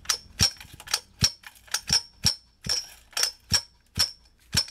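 Rhythmic metallic clinks, about three a second, each with a short bright ring, from a pocket bike's metal frame and stand as the bike is worked by hand to get fuel into the new carburetor's float bowl before starting.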